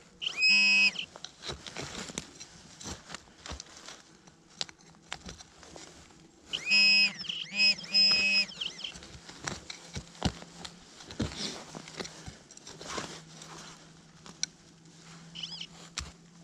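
Metal detector beeps: a short warbling tone just after the start, a run of three or four more around seven to eight seconds in, and a fainter one near the end. Between them, scraping and rustling of soil and dry leaves from digging a target out by hand.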